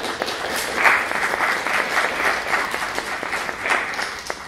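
Audience applauding: dense clapping that is strongest about a second in and thins out to a few last claps near the end.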